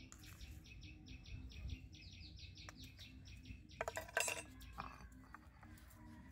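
A bird chirping rapidly, about four or five short chirps a second, for the first half. About four seconds in, a sharp clatter of stone on stone as the heavy stone roller is set down on the flat grinding slab; this is the loudest sound.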